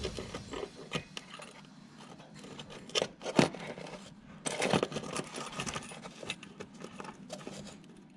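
Metal parts of an aftermarket slip-on exhaust silencer clinking and knocking as it is fitted by hand to an ATV's header pipe. Scattered sharp clicks, with louder knocks about three seconds in and again near five seconds.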